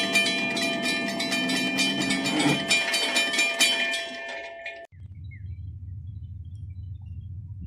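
Railroad grade-crossing warning bell ringing in rapid, even strokes while the gate arm rises, over a low rumble; it cuts off about five seconds in, leaving only a low steady rumble.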